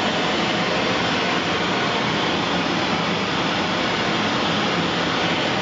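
Propane brazing torch burning at full flame as it heats a copper locomotive boiler for silver soldering: a steady, even rushing noise that does not change.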